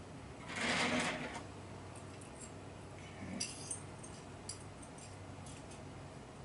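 Recoil spring and guide rod of an HK USP pistol being fitted by hand: small steel parts clinking and clicking, with a brief louder rustle about a second in and a ringing metallic clink past the middle.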